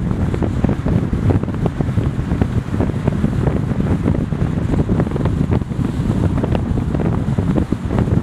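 Wind buffeting the microphone of a camera on a moving car: a loud, low rush with constant rapid, gusty flutter, mixed with the car's road noise.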